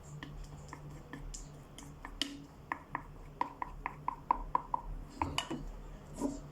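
A utensil clinking against a bowl while stirring slime mixture, in a run of short ringing taps that come about three a second in the middle.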